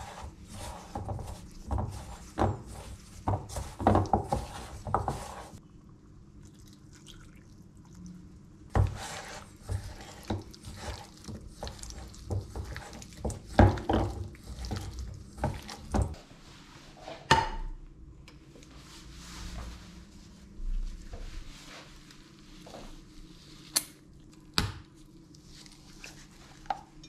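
Gloved hands mixing raw chicken pieces in a flour coating in a stainless steel bowl: squishing and rustling with knocks against the metal bowl, in bursts. A clink about 17 seconds in rings briefly; two sharp clicks come near the end.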